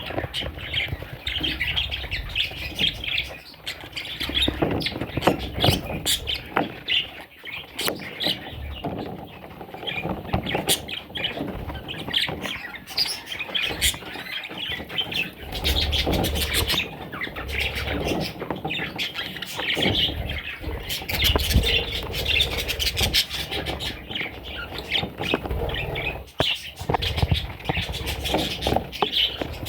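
A flock of budgerigars chattering, many short chirps and squawks overlapping.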